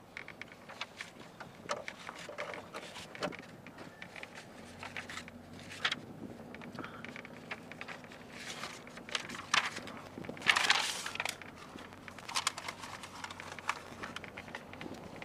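Irregular clicks and rattles from a utility vehicle jolting along a rough dirt track, with a faint low motor hum for a few seconds in the middle and a short rush of noise about ten and a half seconds in.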